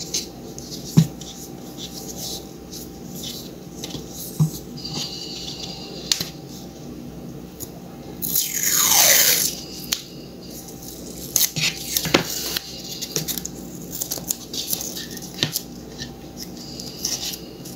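Hands handling tape and wire while insulating a wire joint: scattered small clicks and rustles, with one loud rip of tape about eight seconds in, lasting about a second and falling in pitch. A faint steady hum sits underneath.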